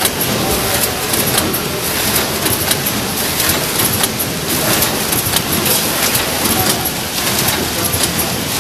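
Vertical form-fill-seal pouch packing machine running. It gives a steady mechanical clatter with sharp ticks every half second or so as it cycles.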